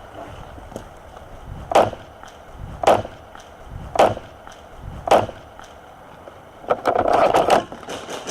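Four slow, evenly spaced crunching footsteps on dry ground, about a second apart, then a longer rustle and scrape near the end, like moving through dry brush.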